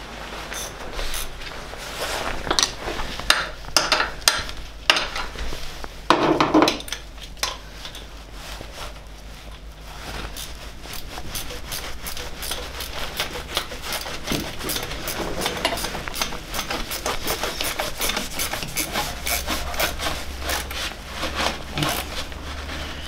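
Metal hand tools clinking, scraping and clicking against engine parts as the dynamo mounting bolts are worked on. There is a heavier clunk about six seconds in, and a quick run of small clicks through the second half.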